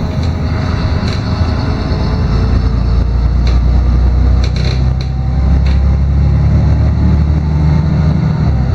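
Cabin noise of a LiAZ-6213.22 articulated city bus under way: a steady diesel engine drone with road noise. A faint whine slides down and then up in pitch, and light rattles sound now and then.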